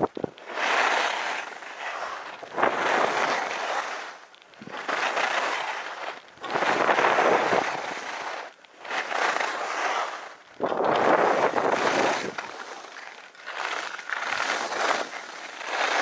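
Skis carving turns on packed snow, each turn a surge of scraping snow noise that swells and fades, roughly every two seconds, with wind on the microphone.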